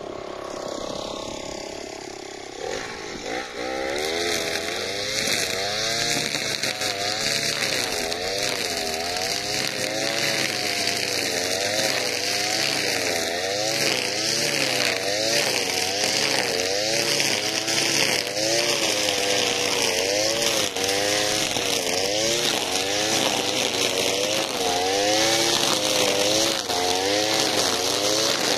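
Alpina Star 55DP two-stroke petrol brushcutter running hard while cutting dry weeds, its engine pitch rising and falling over and over as the head swings through the growth. It gets louder from about four seconds in.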